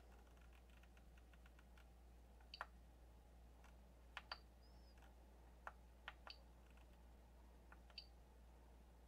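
Faint, scattered clicks of the Prusa MK3's LCD control knob being turned and pressed, some in quick pairs, over a low steady hum.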